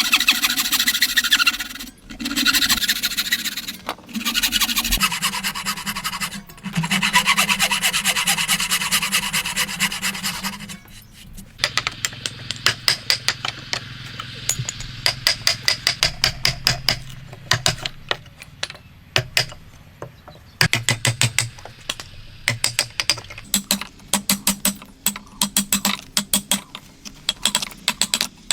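Hand tools working wood: long rasping strokes about two seconds apart, like a hand saw or rasp cutting, then from about eleven seconds in a quick run of light sharp clicks on the wood.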